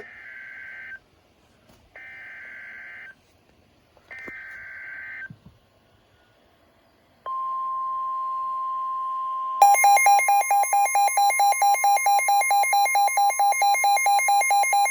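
Emergency alert signal: three one-second bursts of buzzing SAME header data, then a long steady single-pitch warning tone. A couple of seconds after the tone starts, a loud pulsing electronic alarm joins it, beeping about four times a second.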